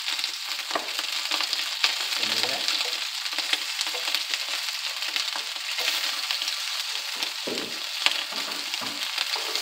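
Pieces of Italian sausage sizzling in a hot wok, a steady hiss with scattered sharp crackles, while a wooden spatula scrapes and turns them.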